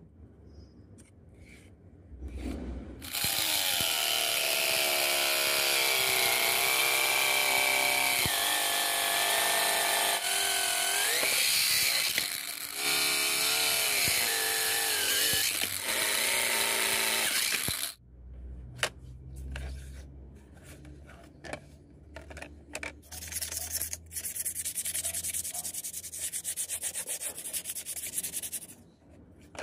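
A handheld angle grinder with an abrasive cutting disc runs for about fifteen seconds, cutting through a plastic sheet. Its whine dips in pitch whenever the disc bites, then stops abruptly. After that comes hand sanding: sandpaper rubbed over the plastic in short strokes that grow faster and steadier near the end.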